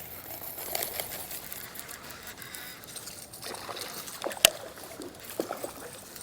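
Water trickling and splashing lightly, with scattered small clicks and one sharp click about four and a half seconds in.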